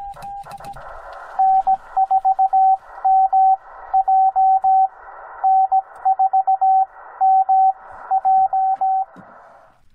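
Morse code (CW) tones from a Yaesu FT-891 transceiver's speaker: a single tone keyed in dits and dahs over a band of receiver hiss. A fainter keyed tone stops in the first second, then a much louder stretch of code runs until about a second before the end.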